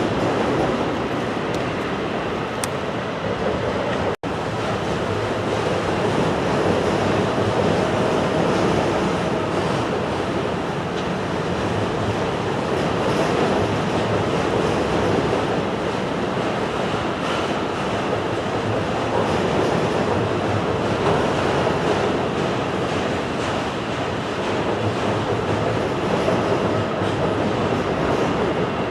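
Railroad cars rolling past, steel wheels rumbling and clattering steadily on the rails, with a momentary dropout about four seconds in.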